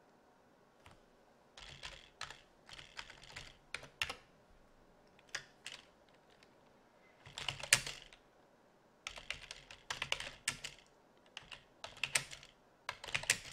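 Computer keyboard typing in several short bursts of rapid keystrokes, with pauses of a second or so between them.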